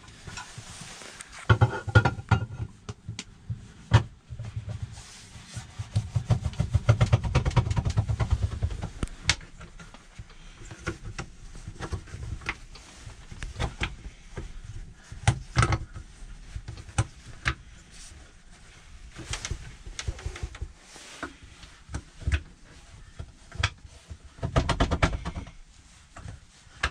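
Scattered knocks, clicks and rattles of a table being set up inside a small camper, with stretches of low rumbling bumps.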